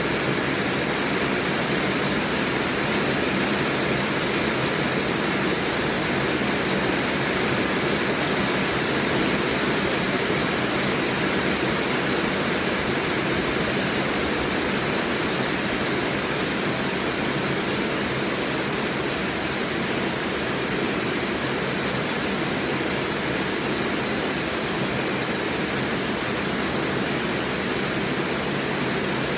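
Heavy rain falling, a steady even rushing hiss.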